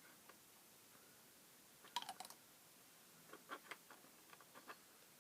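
Light clicks and taps of small plastic model-kit parts being handled, with a quick cluster of clicks about two seconds in and a few softer scattered clicks after.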